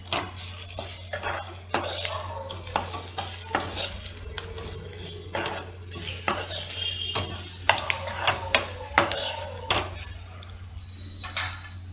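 Stirring in a kadai: irregular scrapes and knocks against the pan as fried fish pieces are turned through a sizzling onion-tomato masala, with a faint sizzle underneath.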